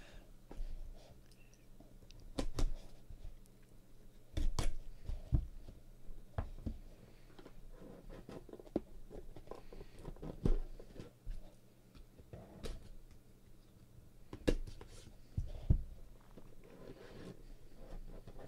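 Hands handling a dark cardboard or plastic card box and sleeve: scattered sharp clicks, taps and knocks with soft rubbing and sliding as it is turned over and opened to slide a card out. A faint steady low hum lies underneath.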